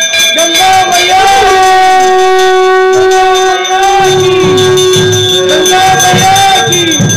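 Music with a voice singing long, held notes; a low beat comes in about four seconds in.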